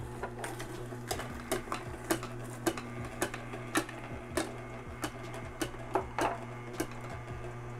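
Nama vertical slow juicer running with a steady low motor hum, its auger crushing hard pieces of ginger and turmeric with sharp cracks about twice a second.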